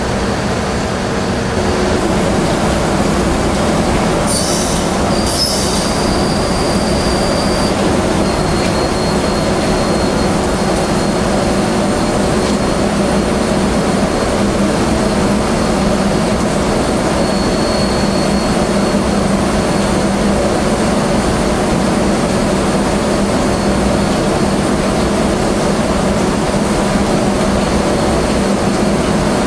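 Heavy machinery running with a loud, steady hum and rumble, with short high squeals about four to six seconds in.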